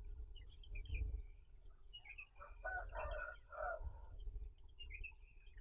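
Evening countryside sounds: small birds chirping in short scattered calls over a steady high insect drone, with a low rumble underneath and a brief louder sound about halfway through.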